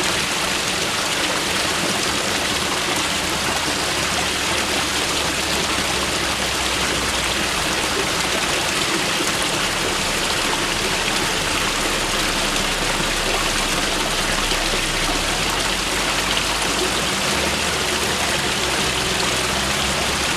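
Mountain river rushing steadily over rocks, an even hiss of running water.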